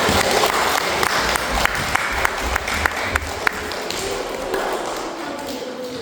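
A room full of young children clapping, a dense patter of many hands that thins out over the last couple of seconds.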